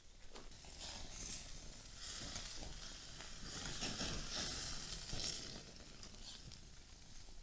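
A large ground-meat patty sizzling on a wire grill over hot charcoal. The sizzle swells around the middle as the patty is lifted and turned over with a knife and flames flare up under it.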